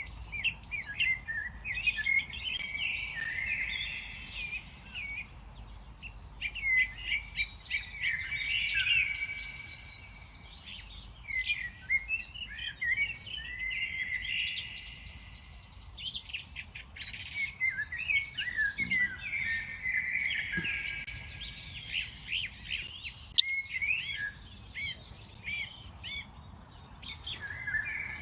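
Many birds of several species chirping and singing at once, a dense chorus of short overlapping calls and trills that thins out briefly several times.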